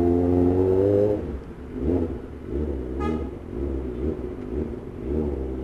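Kawasaki ZX25R's inline-four engine running at steady, slightly rising revs, then dropping to a low, uneven rumble about a second in as the throttle is closed and the bike rolls in slowly. A short high-pitched tone sounds about three seconds in.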